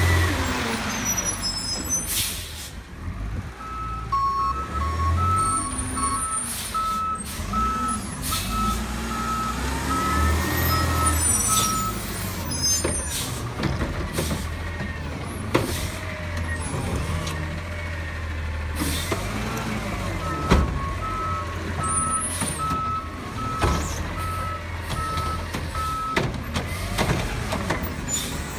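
Garbage truck working a collection route: its engine runs with a low rumble that rises and falls in pitch, its reverse alarm beeps steadily in two spells, and short, sharp air-brake hisses break in several times.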